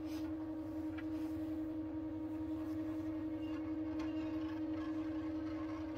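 Quilting automation's carriage motors driving a Qnique 15 longarm sewing head sideways across the quilting frame to the start point of the next row, a steady even hum.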